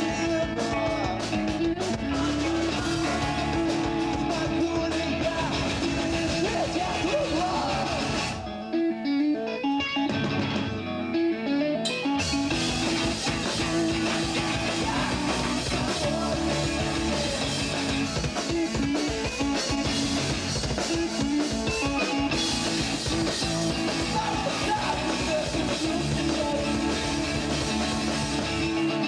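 Live emo rock band playing with distorted electric guitars, bass and drum kit, with some singing. About eight seconds in, the drums and bass drop out for a few seconds, leaving the guitar alone, then the full band crashes back in.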